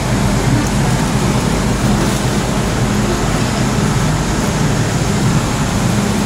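Steady hum and noise of an MTR M-Train standing at an underground platform with its doors open: the train's air-conditioning and onboard equipment running, mixed with the station's ventilation.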